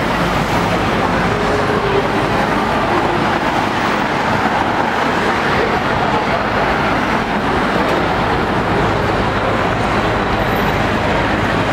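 Steady city street traffic noise: a continuous rumble of passing cars and idling engines.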